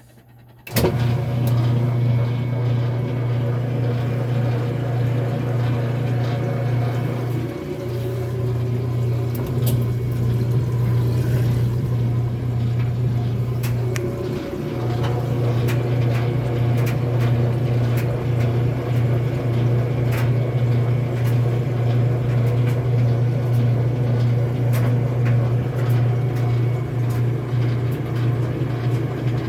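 Kenmore washing machine running, a steady loud low motor hum with light ticks and rattles over it. The hum starts suddenly under a second in and briefly dips twice.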